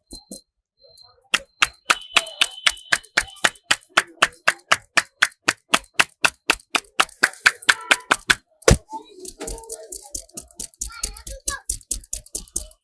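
A barber's hands striking a client's head in quick, even massage percussion, about five slaps a second. About eight and a half seconds in there is one louder strike, and after it the pats come quicker, softer and uneven.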